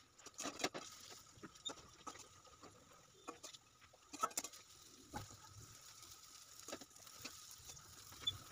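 Batter-coated curry leaves frying in shallow oil in a metal wok: faint, scattered crackles and pops, with a few clicks of a metal spatula against the pan.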